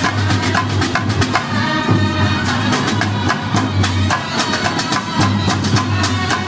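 Brass band of trumpets and clarinet playing a tune together over snare and bass drums, with a dense run of drum strokes under the horns.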